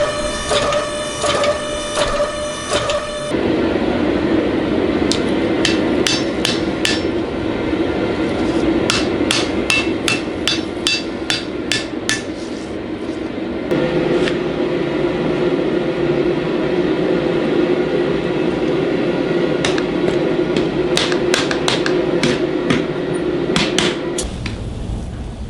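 Hammer blows on steel during the forging of a stainless Damascus billet, each ringing out. In the first few seconds the blows come evenly at about two a second. After that they come in irregular groups over a steady roar, which stops shortly before the end.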